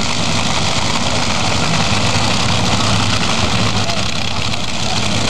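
Vehicle engines idling steadily around the drag strip's staging lanes, a constant low rumble under a hiss of background noise, with voices faintly mixed in.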